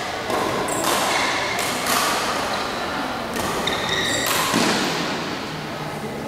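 Badminton rally: a shuttlecock struck back and forth by rackets in a series of sharp hits, with brief squeaks of shoes on the court mat during the lunges. The hits echo in a large hall.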